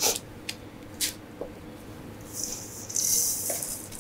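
A sticky raw almond-and-chia cake base is being pressed by hand into a springform pan lined with baking paper and scraped out of a steel bowl. There are a few short rustles and squishes, then a longer rustle of the paper and dough near the end.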